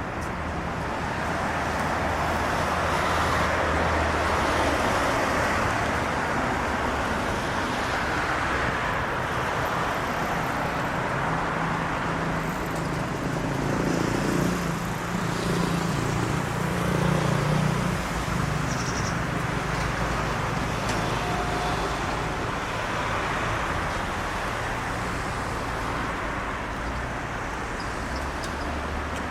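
Steady city road traffic: a continuous wash of passing cars, with a heavier vehicle's low engine hum swelling about halfway through and then fading.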